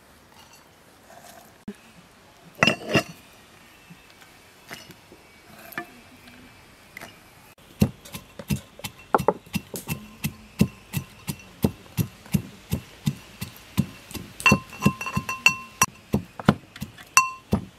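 Brass pestle pounding walnut kernels in a brass mortar. After a few scattered knocks, steady pounding starts about eight seconds in at about three strikes a second. Each strike sets the brass mortar ringing with a clear metallic tone.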